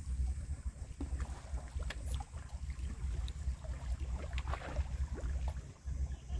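Wind buffeting the microphone in an uneven low rumble, with scattered small clicks and splashes of water.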